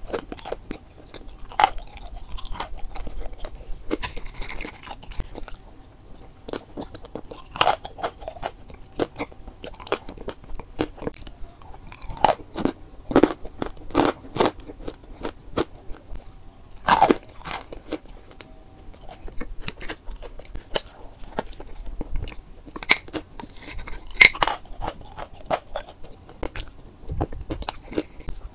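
Pieces of chalk coated in thick white cream being bitten and chewed, with sharp crunches at irregular intervals between quieter chewing.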